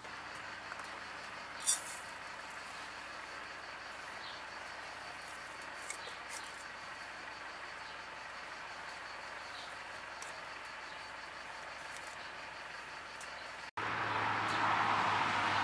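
A single sharp clink about two seconds in, a ceramic lid taken off a glass teapot, over a steady faint outdoor hiss. Near the end, hot water runs from a samovar's tap into the glass teapot in a steady pouring stream.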